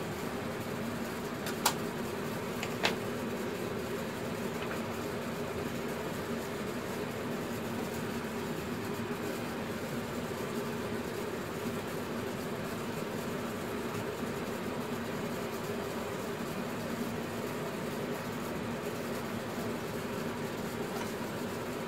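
Steady machine hum from a fan or similar appliance running in the workshop. Two sharp clicks about two and three seconds in, from small plastic parts of a model truck being handled.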